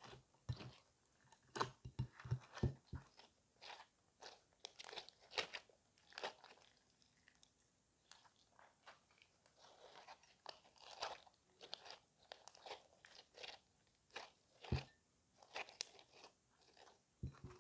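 Hands squeezing, folding and stretching a glittery bead-studded slime: irregular sticky pops, squelches and crunchy clicks, several a second, with a short lull midway.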